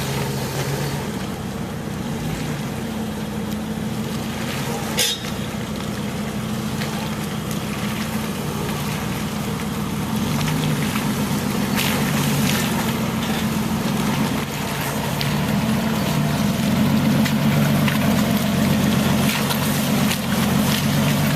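4x4 engine running under load while driving through a rocky riverbed, getting louder about halfway through and louder again near the end. A single sharp knock about five seconds in.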